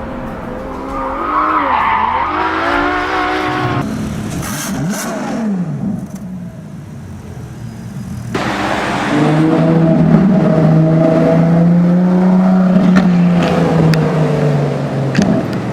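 Ferrari LaFerrari's V12 engine revving and accelerating, in clips joined with abrupt cuts about four and eight seconds in. Around the middle the engine note dips and climbs again, and from about nine seconds it holds a steady high note for several seconds.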